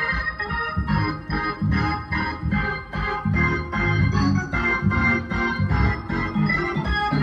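Solo gospel keyboard playing: rhythmic chords struck about twice a second over bass notes.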